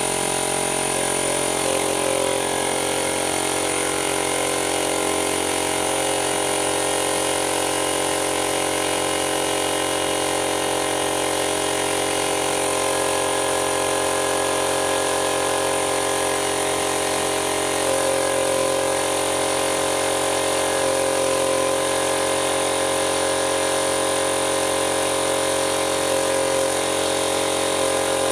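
A 2 hp Forte air compressor running steadily, with an even, unbroken hum from its motor and pump. It is running normally again after an oil change and cleaning.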